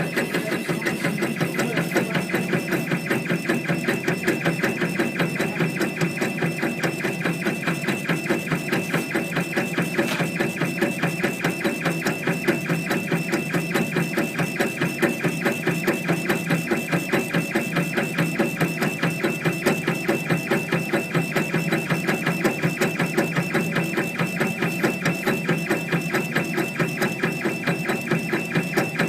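Mini laser engraving machine running a job, its head carriage and stepper motors making a fast, even clatter that repeats several times a second as the head scans back and forth, over a steady machine hum.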